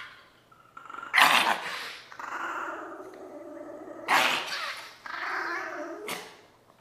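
A small curly-coated dog growls and snarls, breaking into sharp snapping barks three times as it turns on the hand restraining it. This is an aggressive reaction to being handled on the grooming table.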